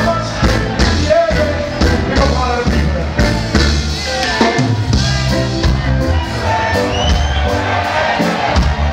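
Live reggae band playing loudly in a concert hall, with heavy bass, steady drum strokes and a voice singing over the mix, with some crowd noise.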